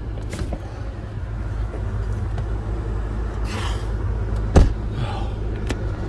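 Car engine idling, heard from inside the cabin as a steady low hum, with rustling handling noise and one sharp knock a little past halfway as the phone is moved.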